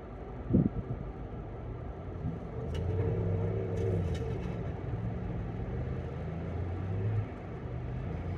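Ford Bronco's engine running on a snowy off-road trail, growing louder about two and a half seconds in with its revs rising and falling. A short thump about half a second in.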